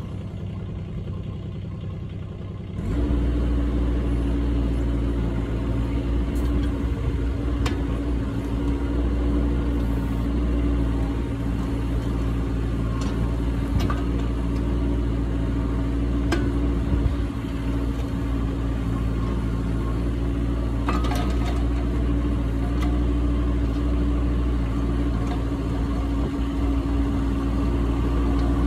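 Kubota K008-3 mini excavator's small three-cylinder diesel engine idling, then throttled up about three seconds in and running steadily while the bucket digs a trench. A few short knocks from the bucket and boom linkage come through now and then.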